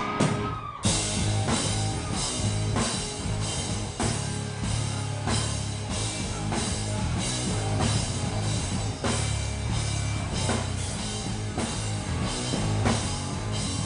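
Rock band playing live: after a brief stop under a second in, drums and guitars come in together on a steady beat, with drum hits about twice a second.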